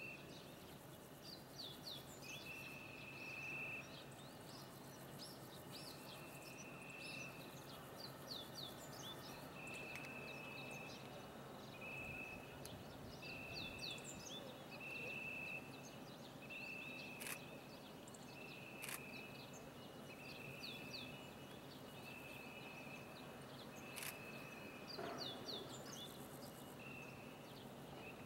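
Birds calling outdoors: groups of short, quickly falling chirps, together with a high steady note repeated about once every second or two, over faint steady background noise.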